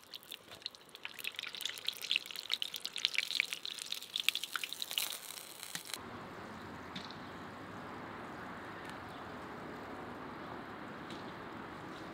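Hot oil crackling and spattering densely, typical of pies deep-frying. About six seconds in it cuts abruptly to a steady, even hiss.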